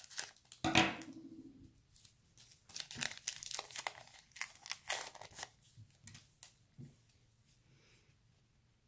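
A Topps Garbage Pail Kids Mega Pack wrapper crinkling as the pack is opened and the stack of sticker cards is slid out. A sharp crackle about a second in is the loudest sound, then a run of short crackles, and the sound dies down to faint card handling after about five and a half seconds.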